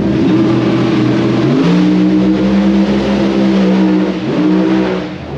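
An engine running nearby, steady, stepping up in pitch about one and a half seconds in, dipping briefly near the four-second mark, then dropping away near the end.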